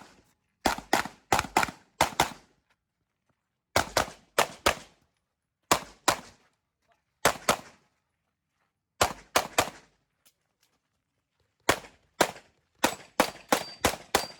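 CZ Shadow 2 pistol firing quick strings of shots, in pairs and runs of up to five or six, with pauses of about a second between strings as the shooter moves and changes targets during a timed practical pistol stage.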